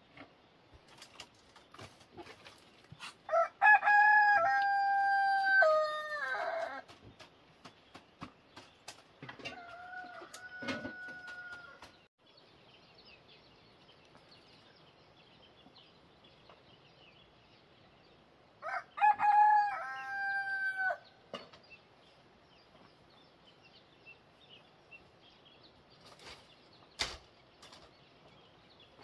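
A rooster crowing twice, each crow a long call of about two to three seconds that steps down in pitch at the end, with a fainter, shorter call in between.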